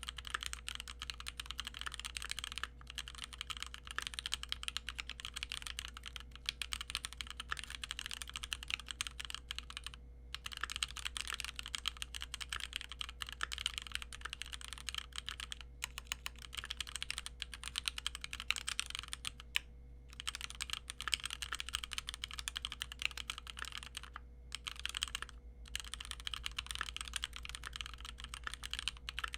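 Keychron Q1 knob-version mechanical keyboard in stock form, with Gateron G Pro Red linear switches and stock keycaps, being typed on quickly in a steady stream of keystrokes, with a few brief pauses. It still has some of the case's metallic ping, which the owner says is less than on the original Q1.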